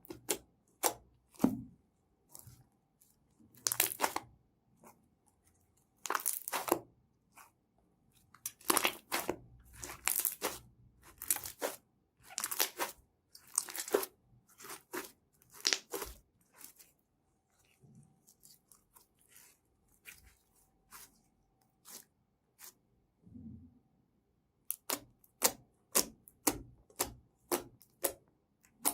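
Slime being squeezed and stretched by hand, making sharp clicking pops and longer crackling stretches. The pops thin out for several seconds in the middle, then come in a quick run near the end.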